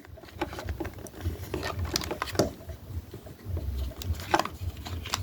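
Hard plastic parts of a large action figure being handled and fitted together: irregular small clicks and taps over low bumps from handling.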